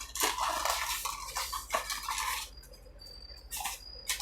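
Small cosmetic pencils and their packaging being handled: rustling with light clicks and taps for the first couple of seconds, then a few isolated clicks near the end.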